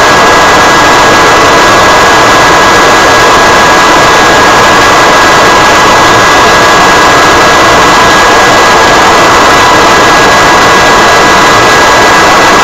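Jet aircraft in flight: a constant, loud rushing noise with a steady high whine over it, unchanging throughout.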